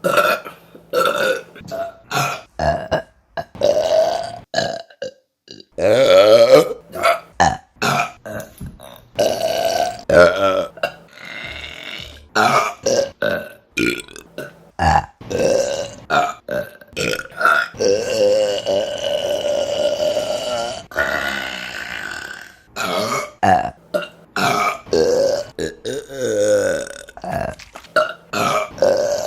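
Women burping one after another, many short burps and a few long drawn-out ones, one of them lasting about three seconds.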